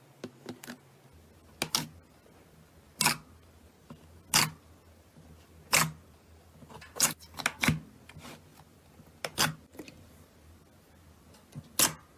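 Slime being pressed and played with, making sharp clicking pops roughly every second or so, with a few softer clicks between.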